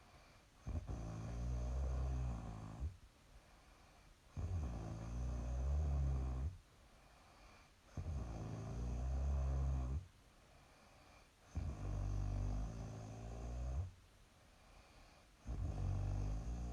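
A young woman snoring in her sleep: five low snores, each about two seconds long, come roughly every three and a half seconds, with quiet breaths between them.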